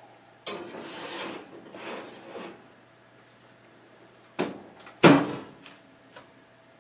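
A metal pizza pan sliding onto a metal oven rack, a scraping rasp lasting about two seconds. A few seconds later the oven door is swung shut: a knock, then a louder bang as it closes.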